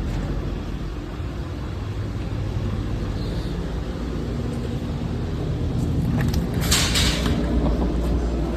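Truck engine running with a steady low rumble, pulling a livestock trailer, getting a little louder in the last few seconds. A brief noise comes about seven seconds in.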